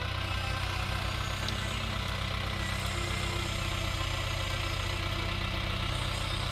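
Diesel engine of a Case backhoe loader running steadily with an even low throb while its backhoe arm digs into scrub.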